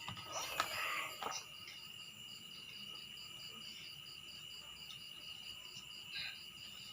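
Insect chirping in a steady rhythm, about five chirps a second, over a constant high-pitched tone, typical of crickets. A few light knocks and rustles come in the first second and a half.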